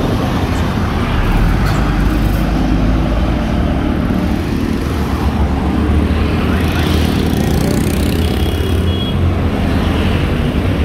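Large diesel coach engine running close by, with road traffic around it.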